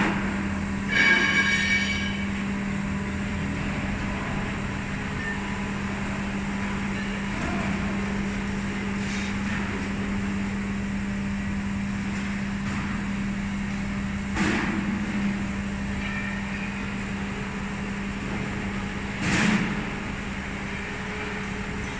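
Welding rotator machinery running with a steady low hum. A brief metallic ringing tone sounds about a second in, and two short knocks come later.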